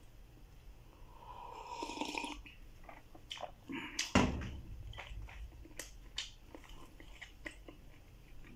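A sip of hot coffee slurped from a ceramic mug, then the mug set down on the table with a clunk about four seconds in, the loudest sound here. Crunchy chewing of kubos bread follows, with sharp crunches every so often.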